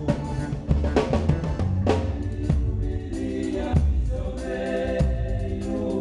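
A band playing a song, with a drum kit keeping a steady beat under sustained pitched chords.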